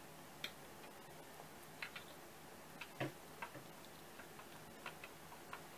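Faint, irregular light clicks and taps of kittens' claws and paws on a glass tabletop, about nine in all, with a slightly fuller knock about three seconds in.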